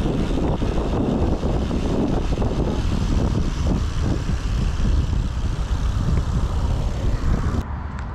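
Wind buffeting the microphone of a camera moving along on a bicycle at riding speed: a loud, rough, steady rumble with no voices, which drops off abruptly near the end.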